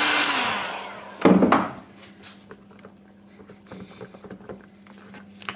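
Heat gun blowing, then switched off, its whine falling and fading within the first second. A loud knock about a second in as it is set down, then light taps and scrapes of a wooden stick stirring epoxy resin in a tin can.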